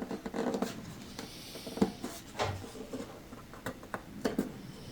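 Scattered light taps, clicks and faint scraping from handling an old acoustic guitar and its just-removed bridge, a few separate knocks spread out over a few seconds.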